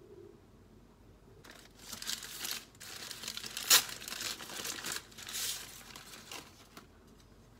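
Thin brown paper wrapping crinkling and crumpling as it is pulled open and scrunched up by hand. It starts about a second and a half in, with one sharp, louder crackle about halfway, and stops shortly before the end.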